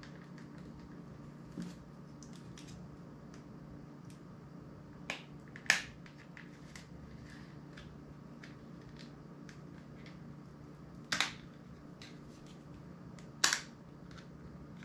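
Plastic clicks and snaps from a mobile phone's casing being pried apart by hand. Light ticks are scattered throughout, with about five louder sharp snaps, the loudest about six seconds in.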